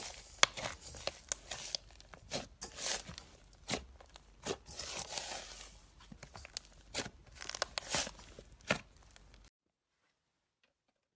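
Slime being beaten and squished: irregular sticky pops, clicks and crackling tearing sounds. The sound stops abruptly near the end, leaving silence.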